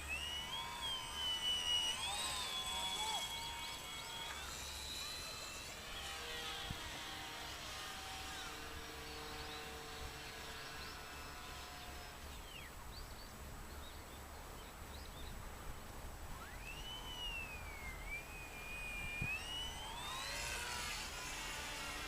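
Motor and propeller whine of a small radio-controlled foam model airplane in flight. The high pitch keeps rising and falling as the throttle changes, and it swells with sweeping pitch shifts near the end as the plane passes close.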